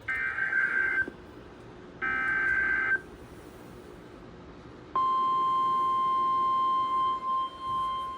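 NOAA Weather Radio sounding an Emergency Alert System severe thunderstorm warning: two one-second bursts of the SAME digital header's warbling data tones, a second apart, then about five seconds in the steady single-pitch warning alarm tone starts and holds.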